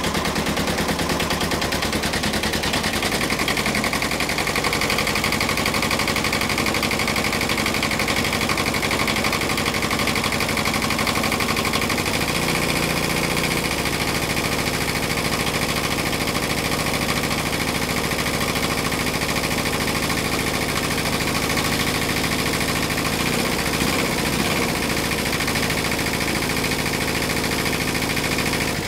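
Kubota Z482 two-cylinder diesel running with a steady clatter, its note shifting a little about three seconds in and again around twelve to fourteen seconds. It is running on an injection pump just repaired with new element springs after one had shattered, and the owner finds it running happily.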